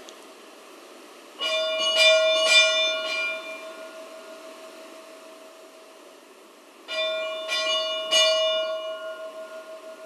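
Church bell rung by hand in two groups of about four quick strokes, the second group starting about five and a half seconds after the first. Each group's tone rings on and fades away before the next.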